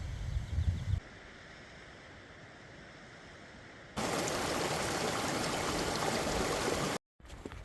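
Mountain creek water rushing, a steady even rush: quieter at first, then much louder from about four seconds in, and cutting off abruptly near the end.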